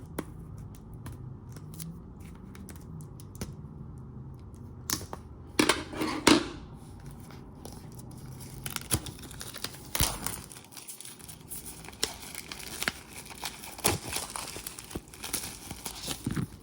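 Wrapping being torn and peeled off a boxed oracle card deck: irregular crinkling and sharp tearing crackles, loudest about five to six seconds in.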